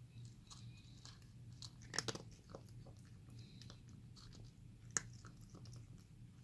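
A cat chewing and crunching food, a run of small irregular crunches with two sharper cracks about two seconds and five seconds in.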